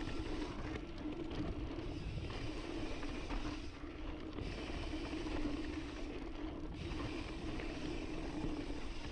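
Intense Sniper cross-country mountain bike riding a dry, loose dirt trail: a steady noise of tyres rolling over dirt and the bike rattling, picked up by the onboard camera.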